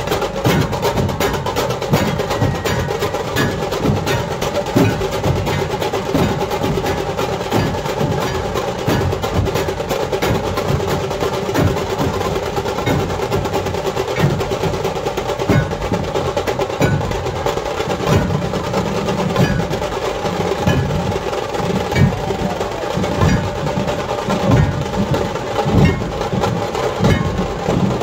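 Massed Maharashtrian dhol barrel drums played by a dhol-tasha troupe. They keep up a fast, dense, unbroken rhythm of heavy deep beats under sharp, cracking stick strokes.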